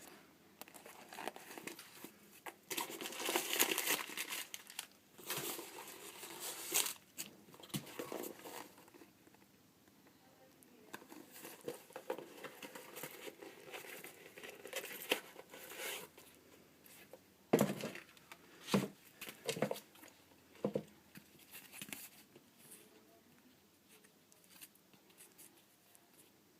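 Paper crinkling and tearing as new football boots are unwrapped from their box packing, loudest in the first few seconds, with four short knocks about two-thirds of the way through.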